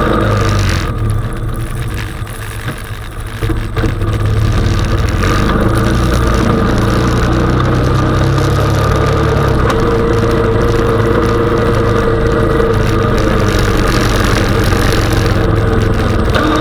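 Honda 420 ATV's single-cylinder engine running while pushing a snow plow. About a second in it drops back for a couple of seconds, then runs steadily.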